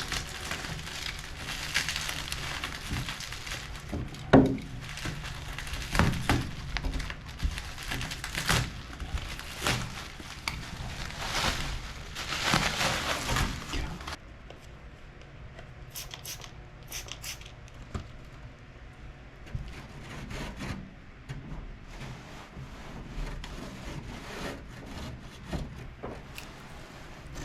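Crinkling and rustling handling noises, with scattered knocks, the loudest a sharp knock about four seconds in; the rustling dies down about halfway through, leaving occasional clicks.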